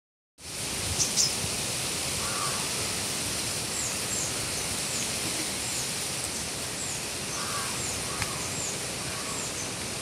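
Steady wind noise, an even rushing hiss through the trees. Over it a small bird gives short, high, falling chirps about twice a second from about four seconds in, and a crow caws a few times; two sharp clicks sound about a second in.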